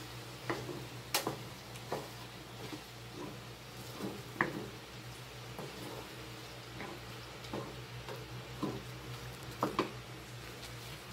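Wooden spatula stirring thick tomato and ground-meat sauce in a non-stick pan, with irregular knocks and scrapes against the pan about once a second over a steady low hum.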